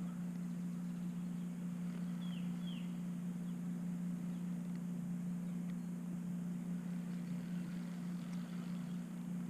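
A steady low hum, even throughout, with two short falling bird chirps about two and a half seconds in.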